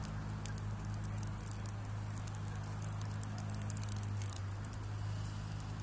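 Propeller airplane's piston engine droning as it flies past, a steady low hum, with sharp crackling clicks throughout.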